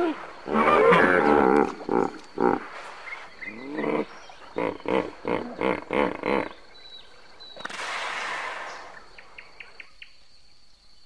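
Lion roaring: a long call, then a run of short grunts at about three a second, then a breathy rasp.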